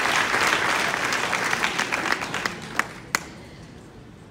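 Audience applauding, the clapping thinning out and dying away with a few last claps about three seconds in.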